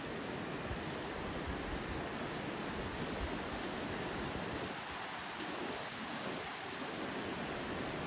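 Steady rushing of wind through the cloud forest canopy, with a constant high hiss running over it.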